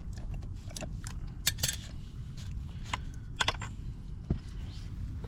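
Tools and pipe fittings being handled: scattered light metallic clicks and clinks, the strongest clusters about a second and a half in and about three and a half seconds in, over a steady low rumble.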